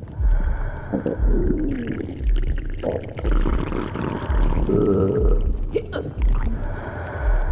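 Stomach growling: long gurgling rumbles with squeaky, wavering pitch, over a low thump that repeats about once a second.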